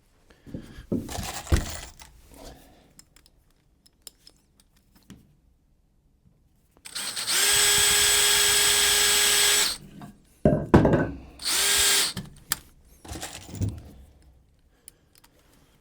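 Power drill driving a fastener into a wooden board. It runs at a steady pitch for about three seconds, stops, and after a couple of sharp knocks runs again briefly. Scattered knocks and handling of boards are heard before and after.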